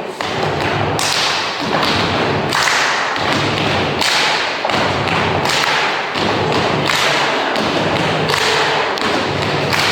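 Loud, steady beat of heavy drum hits, about two a second, over a low sustained tone.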